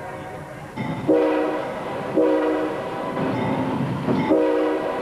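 CSX diesel locomotive's multi-note air horn sounding three short blasts, about a second in, about two seconds in and near the end, over the rumble of the moving train.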